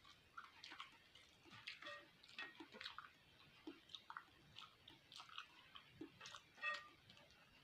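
Faint, close chewing of beef fat: irregular wet smacks and small clicks of the mouth, a few each second.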